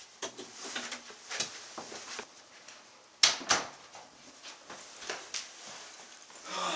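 Scattered small knocks and handling noises, like a door or drawer being moved, with two sharp knocks close together about three seconds in.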